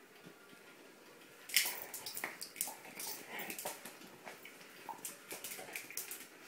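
A dog's claws clicking and scrabbling on a tiled floor as it pounces and paws at a laser dot, a quick irregular patter that starts suddenly about a second and a half in.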